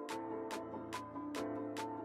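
Background music with a steady beat, about two drum hits a second, over a melody and bass line.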